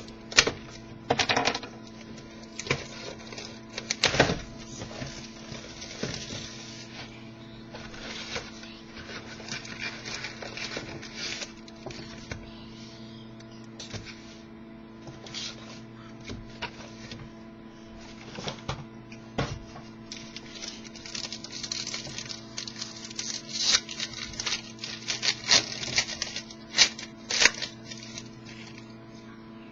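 Packaging of a box of hockey trading cards being opened and handled: irregular crinkling, rustling and clicking of plastic wrap, foil packs and cardboard, busier in the second half. A steady electrical hum runs underneath.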